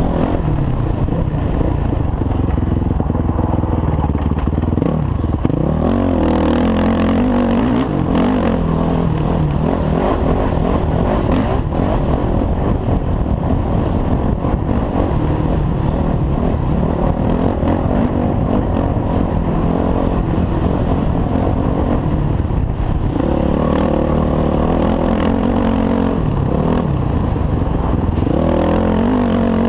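Four-stroke dirt bike engine running hard under race load, the revs climbing and dropping through the gears, most clearly about six seconds in and again in the last several seconds.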